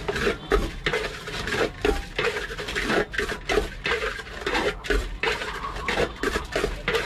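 Metal spoon stirring puffed rice around a large stainless-steel bowl, scraping and clattering against the steel about three times a second as the jhal muri is mixed.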